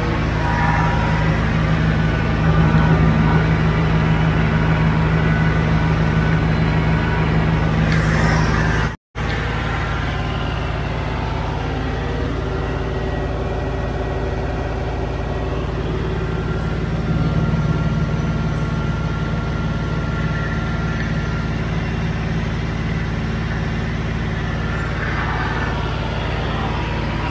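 Tractor diesel engines held at full throttle, about 2000 rpm: first a Kubota, then, after a brief break about a third of the way in, a John Deere 5039D PowerPro three-cylinder diesel. Both run steadily without revving.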